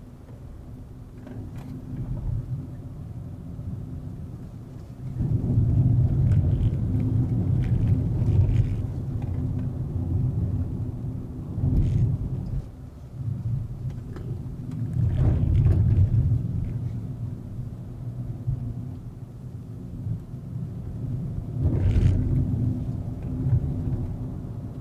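Volkswagen Vento with a 1.2 TSI engine on the move: a low rumble of engine and road noise with a steady hum, swelling louder about five seconds in, again around fifteen seconds and near the end.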